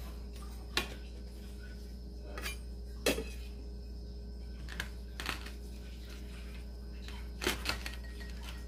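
Kitchen utensils and dishes knocking and clinking, about eight short, sharp strikes at irregular intervals, three of them close together near the end, over a low steady hum.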